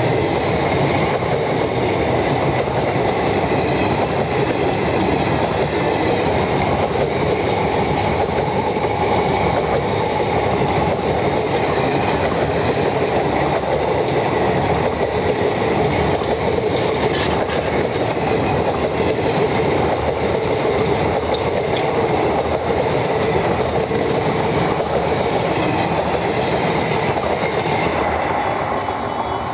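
Coaches of an Indian Railways express train running past at close range: the steady, loud noise of steel wheels rolling on the rails. The noise begins to fade near the end as the last coach passes.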